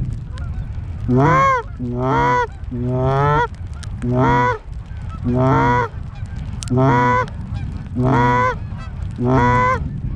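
A hand-blown Canada goose call honking at an incoming flock of Canada geese. It gives about eight loud honks about a second apart, each a short note that bends up and then down, over a steady wind hiss.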